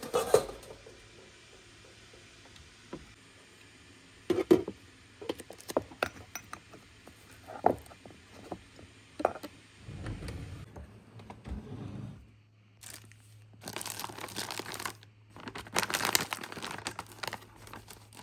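Objects being handled: scattered taps and clicks of things set down, then two spells of crinkling, rustling noise in the second half, over a faint steady hum.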